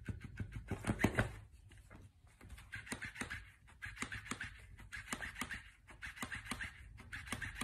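Faint, irregular scratching and tapping as a cat scrabbles on a rug and a flapping toy fish slaps against the rug and wooden floor, with a short lull about two seconds in.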